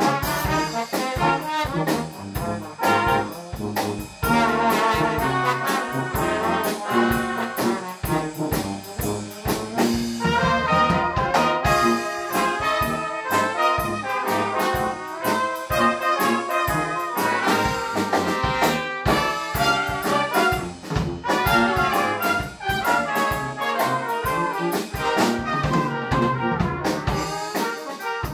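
A small brass band of trumpets, trombones and a tuba playing a tune together, with a drum kit keeping a regular beat.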